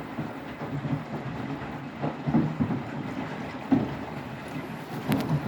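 Beko WTK104121W washing machine drum tumbling during an extra rinse, laundry and a lot of water sloshing and thudding unevenly, with a short click about five seconds in.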